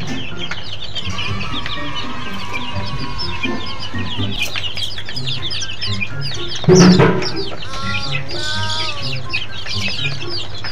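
A flock of young chickens peeping, many short high chirps overlapping without a break. About two-thirds of the way through comes one brief, much louder, lower sound.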